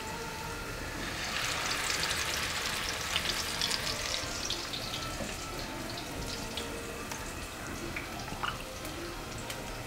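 Shami patties frying in hot oil: a steady sizzle with small spitting crackles. It swells about a second in and then settles.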